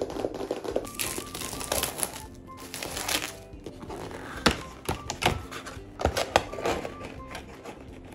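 Hands opening a cardboard blind-box case: the cardboard lid rustles and slides, then come several sharp taps and knocks as the small boxes inside are touched. Soft background music plays underneath.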